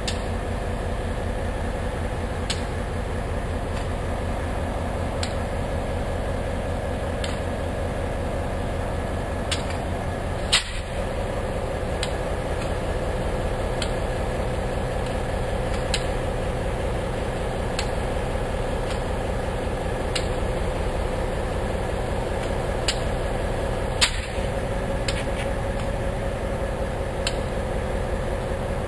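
Diesel switcher locomotive's engine idling steadily with a low, even pulse and a steady hum. A few sharp clicks cut through it, the loudest about a third of the way in and again some three-quarters through.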